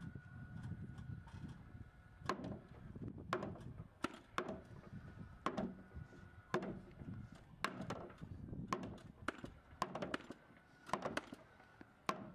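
A long-handled hammer striking a timber block on top of a structural insulated panel, knocking the header panel down over the lintel. Sharp wooden knocks come about once a second from about two seconds in.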